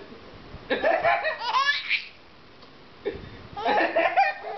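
A baby laughing in two bursts, about a second in and again about three seconds in, matching his father's laugh, which can be heard alongside. The baby's laugh rises and falls in high, arching squeals.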